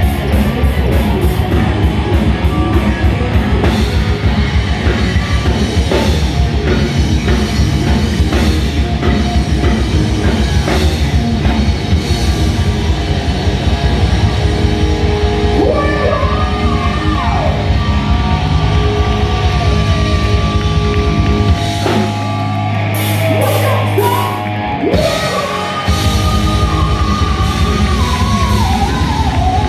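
Heavy metal band playing live, with distorted electric guitars, bass and drum kit, and sung and yelled vocals in the second half. About two-thirds of the way in, the bass and drums drop out for a few seconds, then the full band crashes back in.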